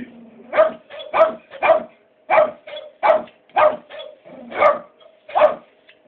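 A dog and a barking parrot trading short barks back and forth, about ten sharp barks in quick succession with brief gaps between them.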